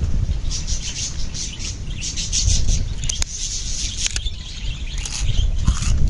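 Birds chirping in quick, repeated short calls over a steady low rumble, with a couple of sharp clicks about three and four seconds in.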